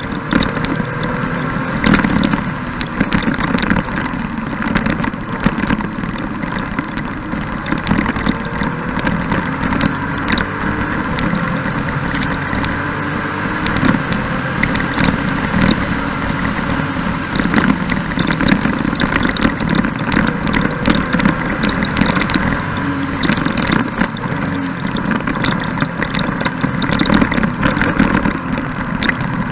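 Can-Am Spyder F3-S's Rotax 1330 inline three-cylinder engine running under way, its pitch rising and falling with speed, heard from an onboard camera with wind buffeting the microphone.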